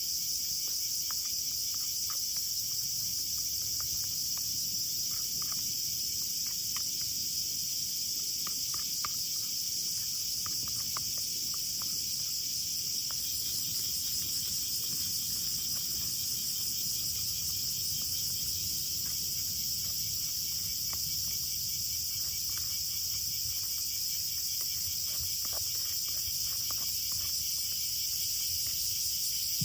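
Steady chorus of crickets and other insects chirping, with a few faint scattered ticks underneath.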